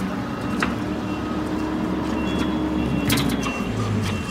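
Motor vehicle engine running steadily, its drone changing pitch about three and a half seconds in, with a couple of sharp clacks.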